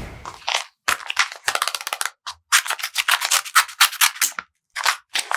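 Paper being handled: quick, dense crinkling and crackling, in several runs broken by brief pauses.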